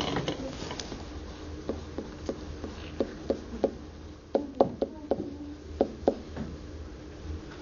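Marker writing on a whiteboard: a string of short, irregular taps and strokes as numbers and symbols are written out, over a faint steady hum.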